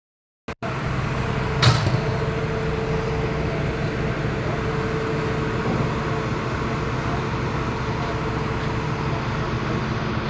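TIG (GTAW) welding on pipe: a steady electrical hum and hiss of the arc and welding machine, with one short sharp crack about two seconds in.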